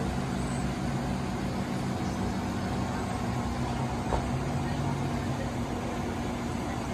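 Amtrak Amfleet passenger coaches standing at the platform, their on-board equipment giving a steady hum with low held tones. There is a single short knock about four seconds in.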